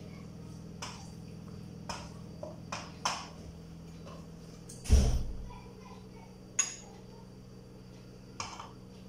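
Serving spoon and dishes clinking and knocking as cooked Nkwobi is dished out from a pot: a few light clinks in the first seconds, a single heavy thud about five seconds in, then more occasional clinks, over a steady low hum.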